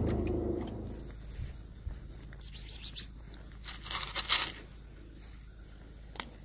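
Night insects trilling in one steady, high-pitched tone, typical of crickets. A car's low engine hum fades out in the first second, and a short cluster of scuffing noises comes about four seconds in.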